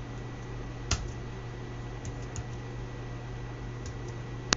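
A few sparse computer-keyboard keystrokes: a louder click about a second in and another near the end, with faint ticks between, over a steady low electrical hum.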